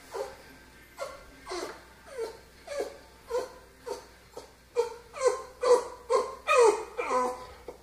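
Dog whining in a run of short, falling cries, about two a second, louder and quicker from about halfway through. This is distress whining at being left alone in its crate with no one near.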